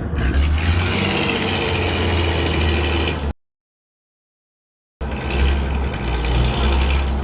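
Truck engine running with a deep low rumble, in two stretches that start and cut off abruptly, with about a second and a half of dead silence between.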